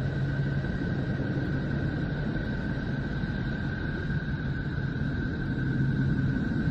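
Space recording made audible, presented as the sound of the planet Neptune: a steady rumbling drone of noise with a low hum and a thin, steady high tone, swelling slightly near the end.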